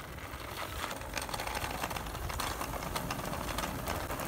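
Bicycle coasting downhill, its freewheel hub ticking rapidly, over wind and road rumble that slowly grow louder.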